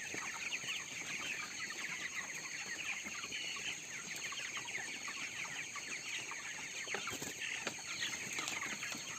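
A large flock of young broiler chickens in a crowded house, a dense, steady chorus of many overlapping peeps and chirps.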